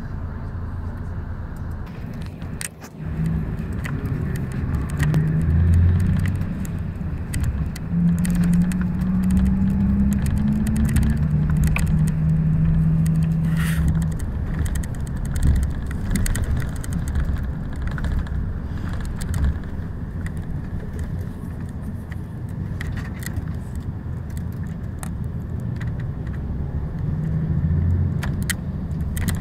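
Inside a moving coach: steady low engine and road rumble with a hum that shifts up and down in pitch, and frequent small rattles and clicks from the cabin.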